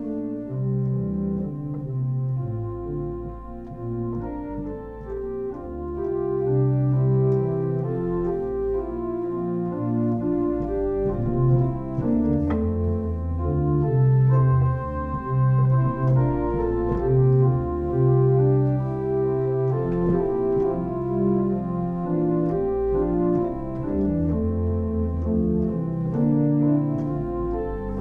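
Organ music: a slow piece of held chords over a bass line, the chords changing every second or so.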